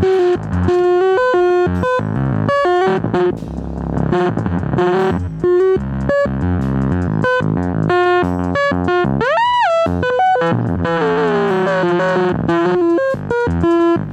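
Korg ARP 2600 analog synthesizer playing a fast run of short sequenced notes, with a pitch swoop up and back down about nine seconds in.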